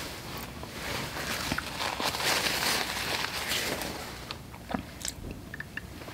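Close-miked chewing of a mouthful of food, with soft wet mouth sounds that swell in the middle and a few short sharp clicks near the end.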